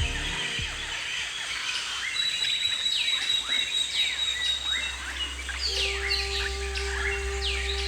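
Several wild birds chirping and calling, with many short, quickly falling notes coming thick and fast. A thin, high, steady note holds for about three seconds near the middle.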